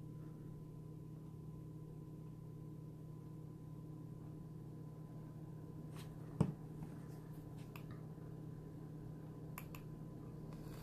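Quiet room with a steady low hum, broken by a sharp knock about six and a half seconds in and a few small clicks near the end, from handling a vape mod and its dripping atomizer.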